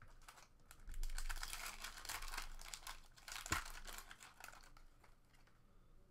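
Foil wrapper of a 2014 SP Authentic Golf trading-card pack crinkling and tearing as it is ripped open by hand, loudest from about one to four seconds in, with one sharp click about three and a half seconds in.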